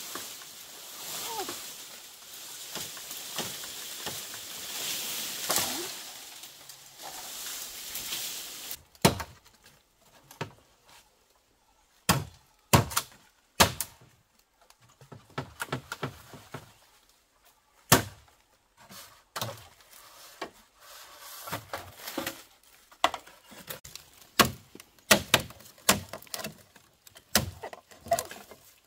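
A steady hiss with a few brief gliding calls, then, from about nine seconds in, irregular sharp knocks and thunks: single hard blows spaced about a second or less apart, some in quick pairs.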